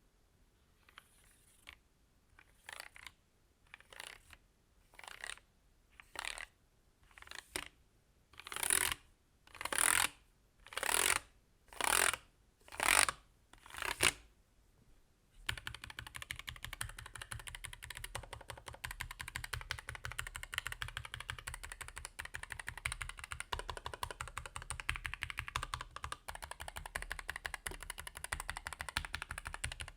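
Keychron K1 Pro low-profile mechanical keyboard with lightly lubed Gateron 2.0 red switches: for about the first half, single key presses come about once a second and get louder. About halfway through, continuous fast typing takes over.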